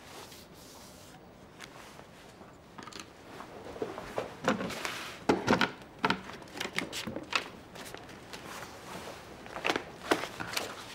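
Quiet room tone, then from about four seconds in a run of irregular light knocks and clicks as objects on a desk (a wooden tabletop easel, pens, papers) are picked up and put down.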